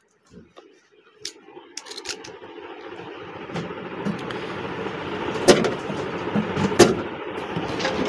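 Screwdriver working the side-panel screws of a steel desktop PC case, with a few sharp metal clicks. Under them a steady noise builds and grows louder from about two seconds in.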